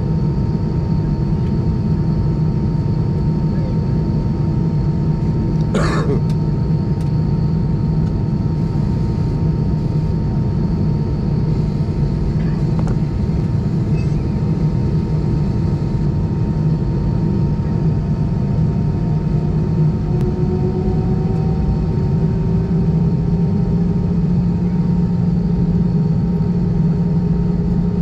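Airbus A320 cabin noise while taxiing: a steady drone from the jet engines at idle. There is one sharp click about six seconds in, and past the middle a hum rises a little in pitch.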